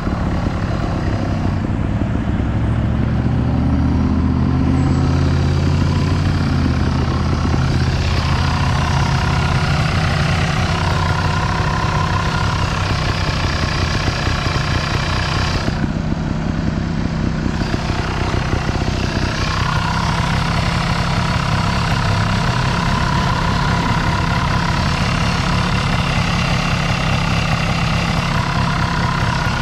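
Sherco trials motorbike's engine running steadily at a fast even beat, its pitch shifting in the first several seconds and then holding.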